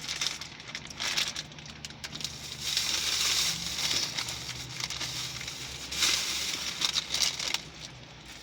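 Plastic candy bag crinkling as a hand rummages in it, in irregular bursts that are loudest about three and six seconds in.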